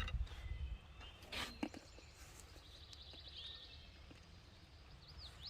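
Quiet outdoor ambience with a low rumble near the start and a single sharp knock of handled gear about a second and a half in. A small bird gives a quick chirping trill about three seconds in.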